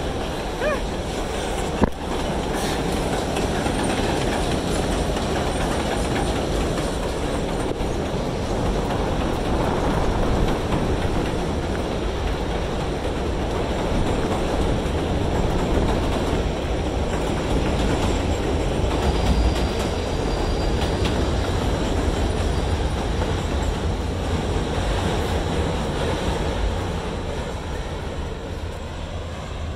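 A 7 train of R188 subway cars running past on the elevated track: a steady rumble and rattle of wheels on the rails, easing off a little near the end.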